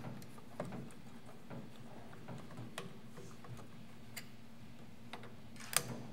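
A few sparse, sharp clicks and ticks of a small screwdriver working a screw in a projector's chassis, the loudest one near the end, over a faint steady hum.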